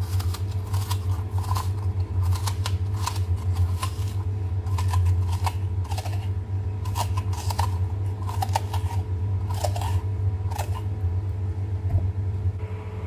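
Hand-held vegetable corer scraping out the inside of a vegetable for stuffing, in short irregular strokes about one or two a second, over a steady low hum.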